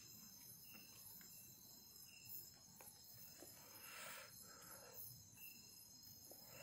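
Faint night chorus of crickets, a steady high trill with a few short chirps, and a brief soft rustle about four seconds in.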